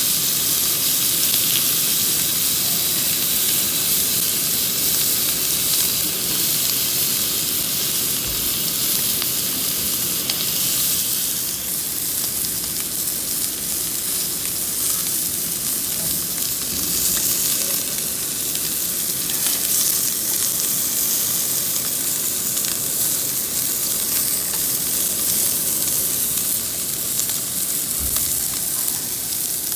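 Pork ribs (galbi) sizzling on a tabletop grill: a steady hiss with fine crackling of fat as the meat cooks.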